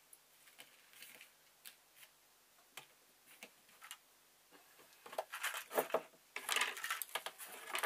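Small sewing items being handled on a tabletop: scattered light clicks and taps, then a busier clatter and rustle from about five seconds in as a hand reaches across and rummages among the things on the table.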